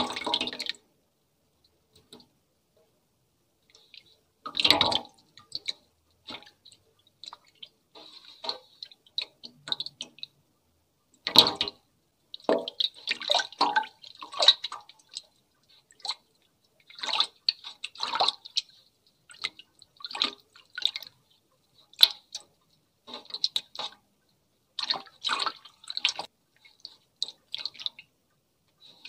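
Foley sound effects imitating a hair wash: wet, watery noises in short irregular bursts with brief gaps between them.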